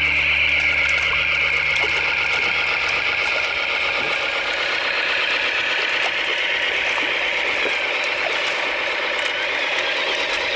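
Heavy diesel machinery engine running steadily, with a high-pitched whine over it and faint scattered clicks.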